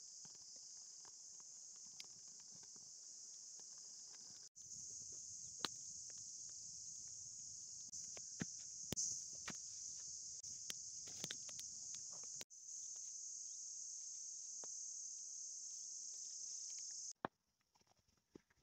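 Steady, high-pitched chorus of buzzing insects, with scattered small clicks and taps of handling. It breaks off briefly twice and cuts out near the end, leaving only faint clicks.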